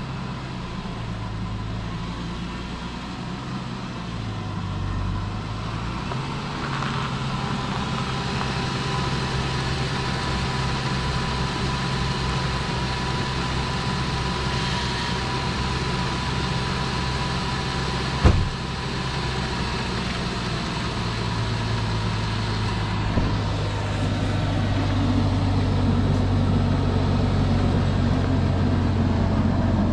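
Ford Thunderbird Super Coupe's supercharged 3.8-litre V6 running at low speed as the car is pulled out of the garage, then idling. A single sharp knock sounds about eighteen seconds in.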